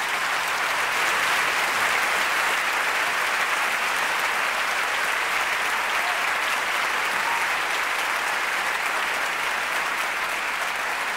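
Concert audience applauding steadily after a song ends.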